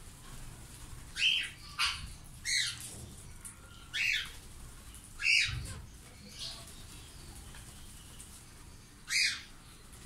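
Indian ringneck parakeets giving short, shrill squawks. There are about half a dozen calls, each falling in pitch, spaced irregularly, with a gap before the last one near the end.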